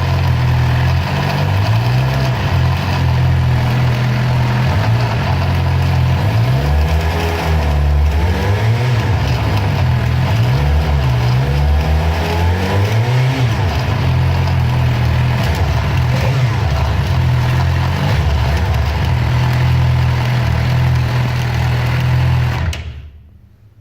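Suzuki GSX-R750 inline-four sportbike engine running, revving up and down several times in the middle. The sound cuts off near the end.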